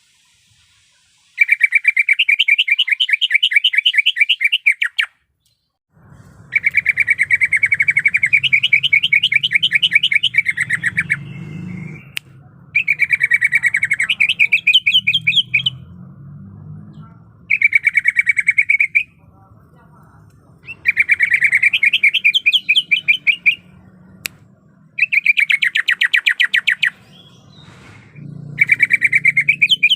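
Green leafbird (cucak ijo) singing fast, rattling trilled phrases of two to three seconds each, seven times with short pauses between them, over a faint low hum.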